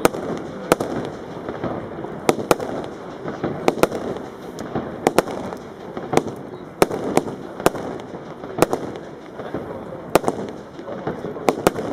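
Weco Thunder Ace firework cake firing: sharp bangs at irregular intervals, about one or two a second.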